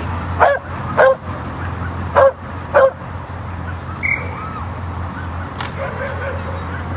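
A dog barking four times in two pairs, each pair about half a second apart, over a steady low hum.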